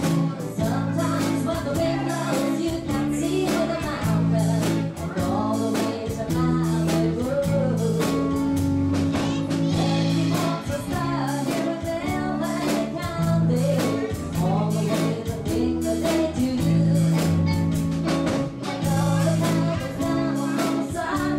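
Live country-rock cover band playing: electric guitar, a steady bass line and drums keeping a regular beat, with a woman singing into a microphone.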